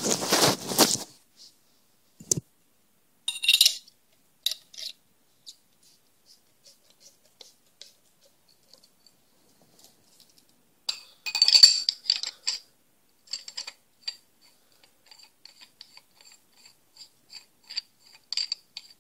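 Handling sounds of a Proto Reflex Rail paintball marker as its two-piece barrel is fitted: scattered small clicks and knocks, a burst of sharp clinks about halfway, then a run of light ticks about twice a second in the last few seconds.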